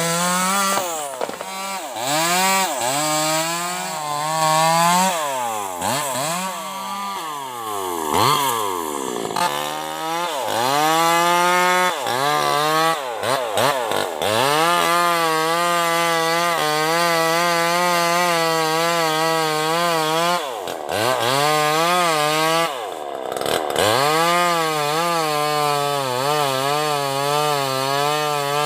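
Bosco 5880 two-stroke chainsaw running at high revs while cutting sengon wood. Its pitch drops and climbs back several times, most sharply around the middle and again near the end, as the throttle is eased off and opened up again, with long steady stretches at full revs between.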